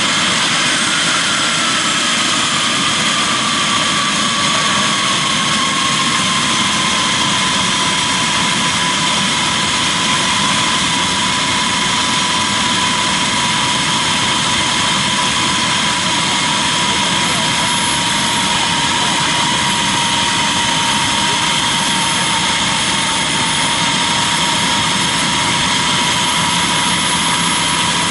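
Small turbine engine of a radio-controlled model jet running steadily on the ground: a continuous jet rush with a whine that drops a little in pitch over the first several seconds, then holds steady.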